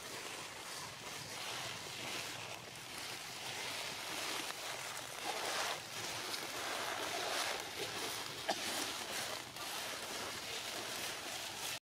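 Dry leaf litter rustling and crunching under footsteps, an irregular crackling noise that cuts off suddenly near the end.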